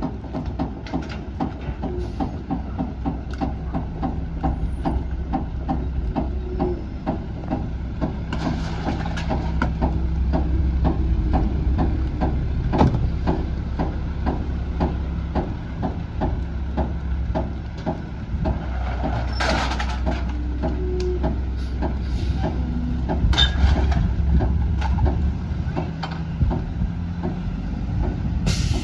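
Mack MR garbage truck's diesel engine running with a rapid clatter, revving up for two long stretches while the Heil Powertrak rear loader's hydraulic packer cycles. A few short bursts of hiss come on top, near the middle and at the end.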